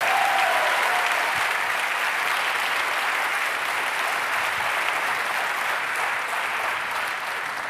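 Studio audience applauding, easing off slightly toward the end.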